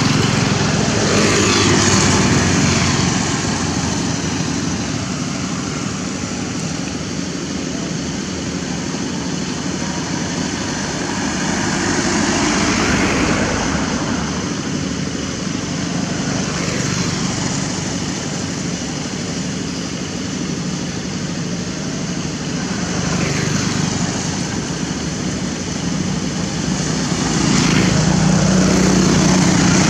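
Motorbikes passing on a road: engine noise swells and fades several times over a steady background of traffic noise, loudest near the end.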